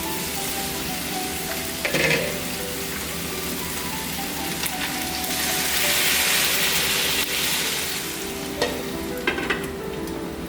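Meat sizzling on a grill pan: a steady frying hiss that swells louder around the middle, with a few sharp clicks about two seconds in and again near the end.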